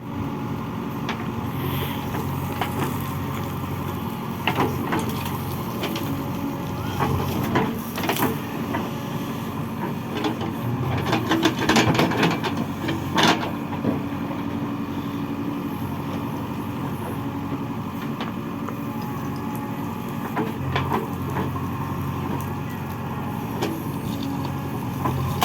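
Diesel engine of a JCB 3DX backhoe loader running steadily while it digs and loads mud, with a run of clanks and knocks from the bucket and earth through the middle.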